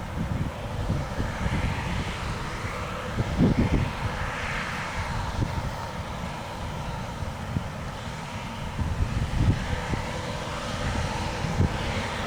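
New Holland CR8.90 combine harvester running steadily while harvesting wheat: a continuous engine and machinery drone, with wind buffeting the microphone in low gusts every few seconds.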